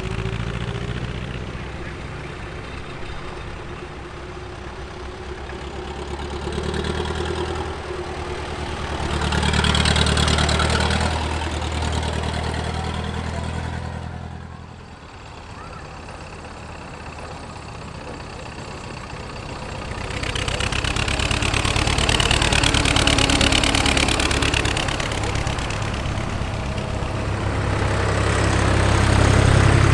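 Engines of vintage farm tractors chugging past one after another. One, pulling a passenger wagon, is loudest about a third of the way in. After a lull, another approaches and is loudest as it passes near the end.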